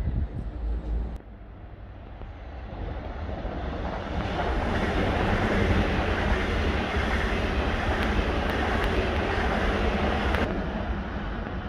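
A train going by on the station tracks: a rumbling rush of wheels on rails builds over the first few seconds, holds loud and steady for about six seconds, then eases off near the end. Wind buffets the microphone briefly at the start.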